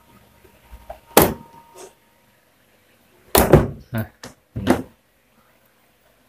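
A few sharp knocks and clatters, one about a second in and a quick cluster of four about three and a half to five seconds in: pliers being set down and the plastic blender base handled on a wooden workbench.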